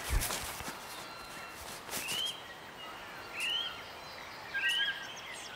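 A bird calls three times, each a short note that rises and then falls, over a steady outdoor hiss, with a single thump right at the start.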